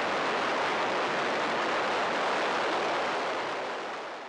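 Steady rushing air noise of an aircraft in flight, with no engine tone standing out, fading away over the last second or so.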